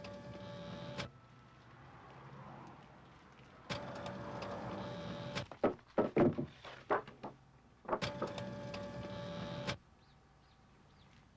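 Photocopier running off copies in repeated passes: a steady mechanical run with a held whine, about two seconds at a time, three times with short pauses between. In the middle comes a quick cluster of sharp chops from a lever paper cutter trimming sheets, the loudest sounds here.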